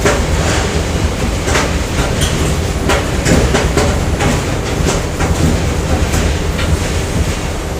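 Factory machinery ambience: a steady low rumble of running machines with frequent irregular metallic clanks and knocks.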